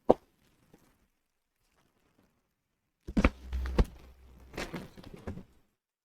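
Cardboard packaging being handled while a shipping box is unpacked: one sharp knock at the start, then, after a pause, a couple of seconds of handling noise with several knocks as the boxes are lifted and moved.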